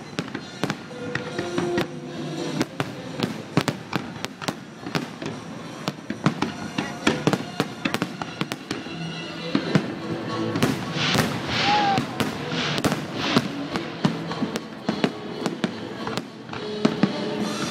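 Aerial fireworks display: a rapid, irregular string of sharp bangs from shells bursting, with a denser stretch of hiss and crackle about two-thirds of the way through.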